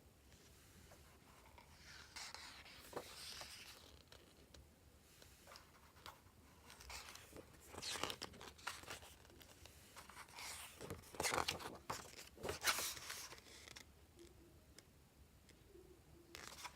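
Packaging being torn open and handled: irregular tearing and crinkling rustles in bursts, a first one about two seconds in, another around eight seconds, and the loudest run around eleven to thirteen seconds.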